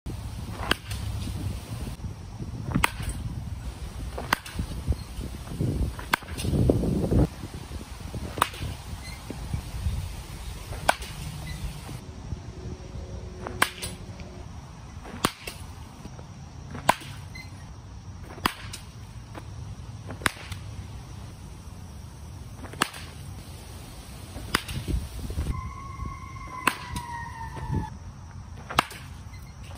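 Baseball bat hitting pitched balls in batting practice: a sharp crack of contact roughly every one and a half to two seconds.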